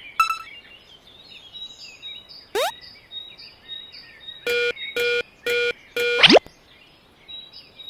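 Cartoon sound effects over a background of chirping birds: a quick falling whistle, then four short, even, pitched beeps about half a second apart, followed by a fast falling sweep.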